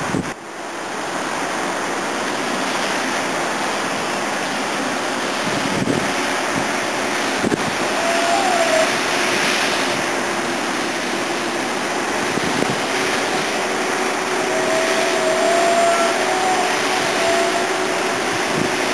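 Steady wash of distant road traffic heard from high above the streets. A faint wavering whine comes in briefly about eight seconds in and again later.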